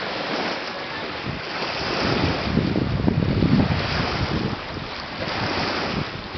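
Wind blowing on the microphone, with a stronger rumbling gust around the middle, over a steady wash of small waves on a sandy shore.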